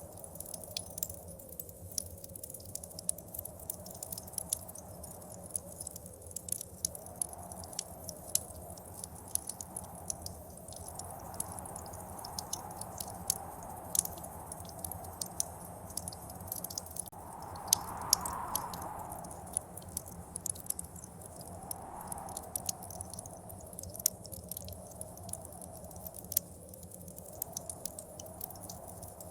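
Wood fire crackling with frequent irregular pops and snaps, over snowstorm wind that swells and fades in gusts, the strongest gust about two-thirds of the way through.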